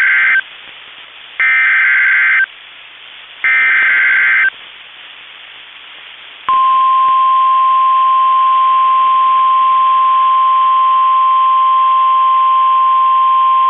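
NOAA Weather Radio emergency alert. The end of one burst and then two more bursts of the SAME digital header screech for about a second each. About six seconds in, the steady 1050 Hz warning alarm tone begins and holds. The alert signals a tornado warning.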